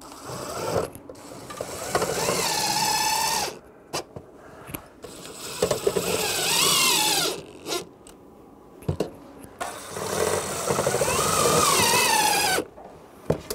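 DeWalt cordless drill driving screws, three separate runs of the motor whining up in pitch as it speeds up and dropping off as each screw seats, fastening a range-hood exhaust vent cap to the siding.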